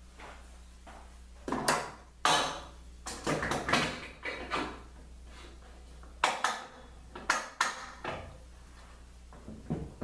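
A run of clunks, knocks and scrapes from handling hard workshop parts, in two clusters: several in the first half and a few more a little past the middle.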